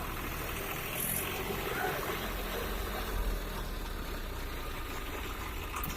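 Diesel tractor engines running steadily.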